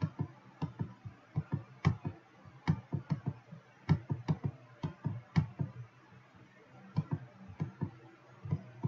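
An irregular run of computer mouse clicks, several a second, with a short pause about six seconds in.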